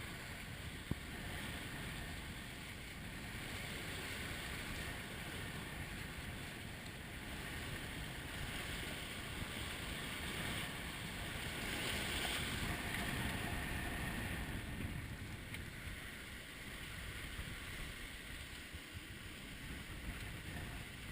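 Steady rush of sea water and wind aboard a sailboat under way, swelling for a few seconds near the middle.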